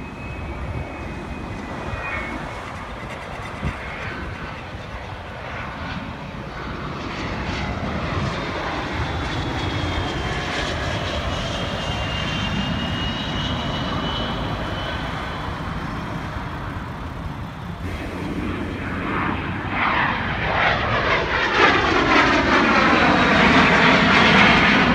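Jet aircraft flying low overhead, their engines whining over a steady roar. Near the end one passes close and grows much louder, its roar sweeping in pitch.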